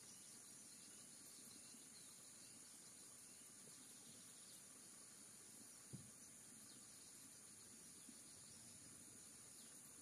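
Faint, steady high-pitched insect chirring, with a single soft knock about six seconds in.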